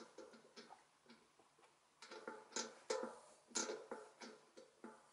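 Threaded bearing press being turned by its T-handle, pushing a cartridge bearing into a Hope Pro 4 rear hub: a string of faint, irregular clicks and creaks, sparse at first and busier after about two seconds.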